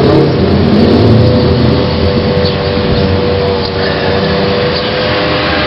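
An engine running steadily, with a droning hum that sets in about a second in and holds over a loud rushing noise.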